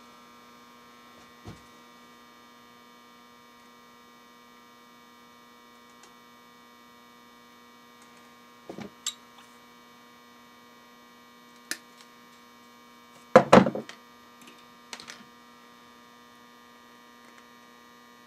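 Steady electrical mains hum, with a few sharp clicks and knocks of pliers and wire being handled on a workbench; the loudest is a pair of knocks about two-thirds of the way through.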